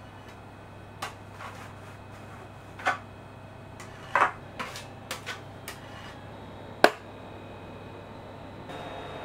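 A long knife scraping excess chocolate off a clear plastic chocolate-bar mould and wiping on the rim of a glass bowl: scattered scrapes and light clicks of the blade against plastic and glass, the sharpest click about seven seconds in.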